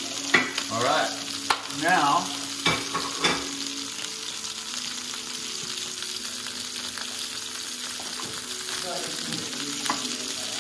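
Food sizzling in a hot cast-iron skillet over a gas burner: a steady frying hiss. A few knocks and clatters come in the first four seconds.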